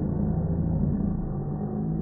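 Slowed-down audio of a room full of people's voices and laughter, stretched into a deep, drawn-out drone and rumble with no clear words.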